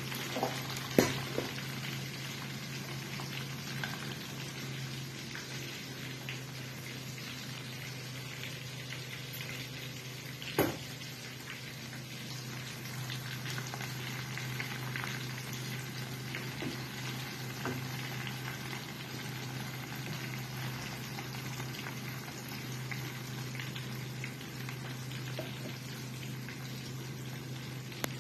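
Chicken pieces and onion frying in bubbling butter in a pan, a steady sizzle full of small crackles over a low steady hum. A few sharp knocks stand out, a couple about a second in and one around ten seconds in.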